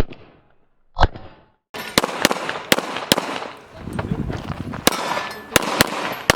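Handgun shots fired in quick succession at an IPSC stage, each a sharp crack with echo, some in close pairs. Before the run of shots, about a second in, there is a short break of complete silence.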